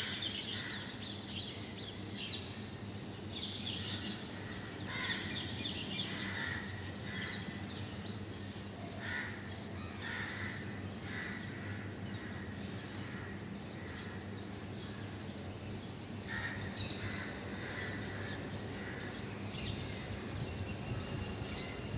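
Birds calling on and off in short repeated calls, over a steady low background hum.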